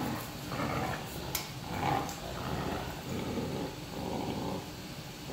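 Play growling from a Rottweiler and a Newfoundland puppy as they pull against each other on a rope tug toy, with a short sharp click about a second and a half in.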